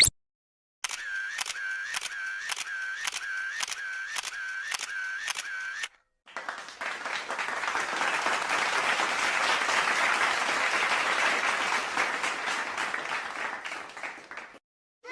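A sound effect of a string of clicks with a short tone in each, about two a second for five seconds, like a camera shutter firing repeatedly. Then, after a short gap, applause swells and fades out over about eight seconds.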